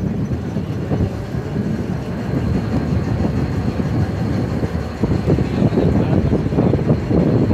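Steady low rumble aboard a moving motorboat: the engine running under rushing air and water noise, with a faint thin whine held high above it.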